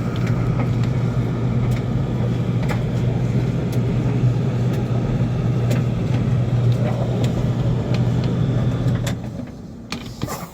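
Steady low machine hum with scattered light clicks, dying away about nine and a half seconds in.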